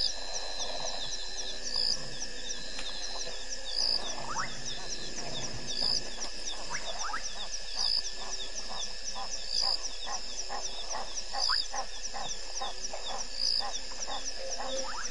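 Night chorus of frogs and insects at a waterhole. A steady high chirring of rapid ticks runs throughout, with a louder high chirp about every two seconds. From about six seconds in comes a quick run of short rising calls, about three a second.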